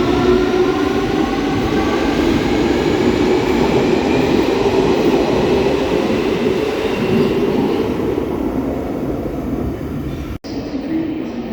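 London Underground 2009 Stock (Bombardier Movia) train pulling away, its traction motors whining in several rising tones over the rumble of the wheels as it accelerates. The whine fades as the train draws away, and the sound breaks off abruptly about ten seconds in.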